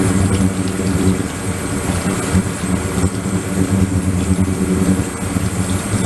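Water splashing and bubbling as a jet pours into a flowing-water ultrasonic cleaning tank, over a steady low hum from the running equipment.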